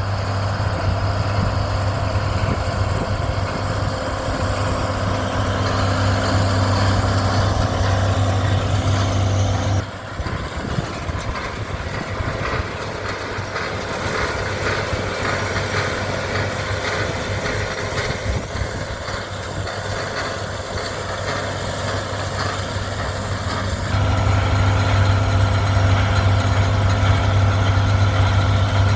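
John Deere 4430 tractor's turbocharged six-cylinder diesel running steadily under load while pulling a round baler. About a third of the way in, the steady low hum drops away and the sound turns rougher and noisier. Near the end the hum comes back strongly.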